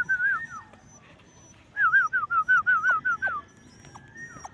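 Puppy whining: runs of short, wavering, high whimpers in quick succession, a brief bout at the start and a longer run of about eight a couple of seconds later, then one falling whine near the end.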